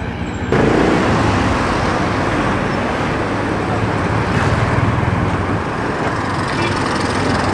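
Steady road-traffic noise with a low engine hum. The sound jumps suddenly louder about half a second in.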